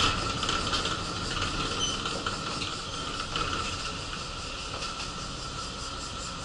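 Inside a city bus: the bus running with a steady hiss and hum, and a few clicks and rattles in the first second.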